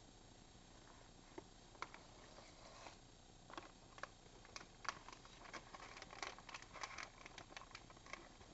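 Pet rats scrabbling and rustling in wood-pellet bedding and cardboard egg cartons: faint scattered clicks and rustles, coming thicker from about three and a half seconds in.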